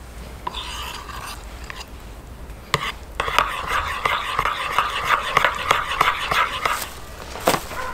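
A metal spoon stirring a thick, creamy garlic sauce in a ceramic bowl: a wet, rough stirring noise that grows louder about three seconds in. The spoon clicks against the bowl now and then.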